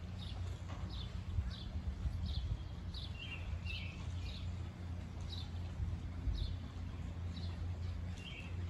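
Songbird calling over and over outdoors: short, high, downward-slurred chirps about twice a second, with a few lower notes mixed in, over a steady low rumble.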